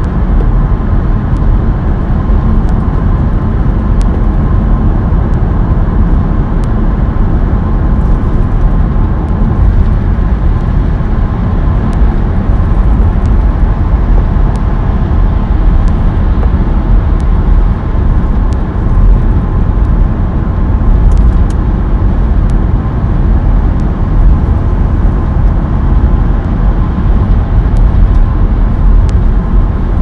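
Steady road noise of a car cruising at motorway speed, heard from inside the cabin: a constant low rumble of tyres and engine.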